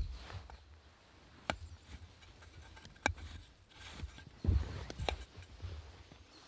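A few sharp knocks or clicks, about a second and a half apart, among low thuds and rustling, as of objects being handled.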